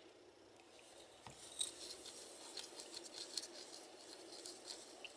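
Soldering iron tip rubbing and scraping faintly in flux in the groove of a metal can lid, with a few small ticks, as the tip is worked in the flux during tinning.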